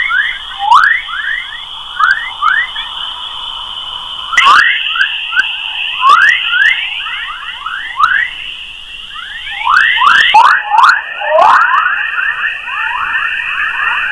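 A space-sound sonification: a dense run of quick rising chirps, several a second, over a steady high whistling tone, shifting slightly about four seconds and again about ten seconds in.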